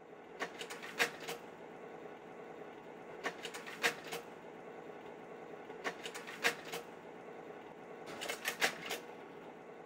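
A slide projector running with a steady fan hum, its carousel mechanism clicking through a slide change in four bursts of several clicks each, about every two and a half seconds.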